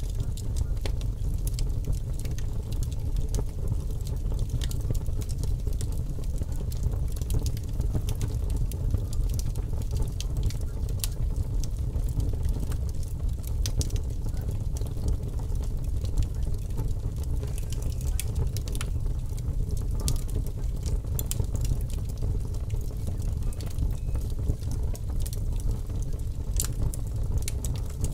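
Fire crackling: scattered sharp pops and snaps over a steady low rumble.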